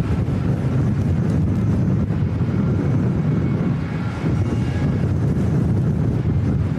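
Steady rumble of a Boeing 747-8F freighter's four GEnx jet engines, with faint whining tones above it, mixed with strong wind buffeting the microphone.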